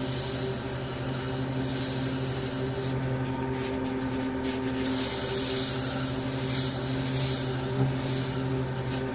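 Wood lathe running steadily with a low hum while a paper towel rubs sanding sealer onto the spinning spalted beech box, adding a hiss that drops out for a couple of seconds about three seconds in.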